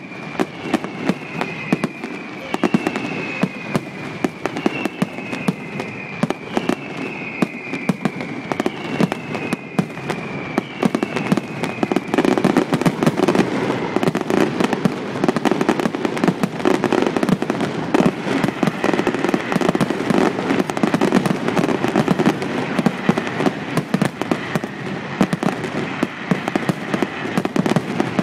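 Fireworks display: a continuous barrage of bangs and crackling, with a string of falling whistles about once a second through the first half. About halfway through, the bangs grow denser and louder into a near-continuous rumble of explosions.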